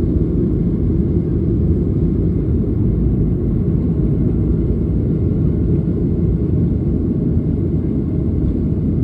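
Boeing 737 taking off, heard from inside the cabin: a loud, steady, deep rumble of the jet engines at takeoff power and the aircraft rolling.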